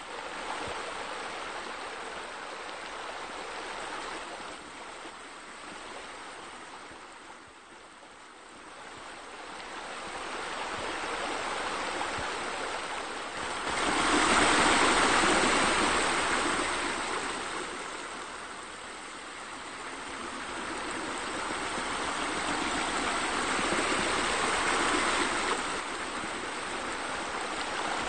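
Running water rushing and splashing steadily. It dips quieter about eight seconds in and is loudest about halfway through.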